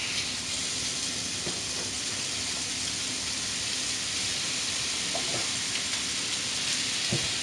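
Seasoned chicken pieces sizzling steadily in olive oil in a hot frying pan as pieces are laid in, with a few faint clicks of handling.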